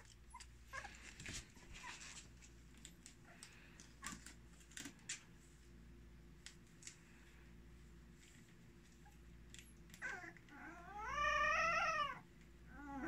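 A puppy scrabbling in a cardboard box, making scattered light scratches and clicks, then about ten seconds in one long whine that rises and falls.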